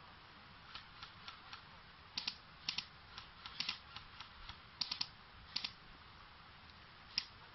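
Airsoft guns firing: sharp cracks, singly and in quick groups of two or three shots, at irregular intervals.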